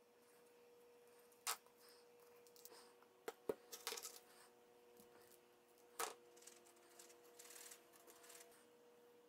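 Near silence broken by a few sharp clicks and taps of small items handled on a wooden workbench, then a short soft scraping late on as a wooden craft stick stirs two-part epoxy on masking tape.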